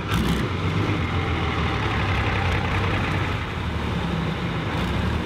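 Tank-derived V12 diesel engine in a modified tractor running steadily at low revs, exhausting through short individual stacks with no mufflers.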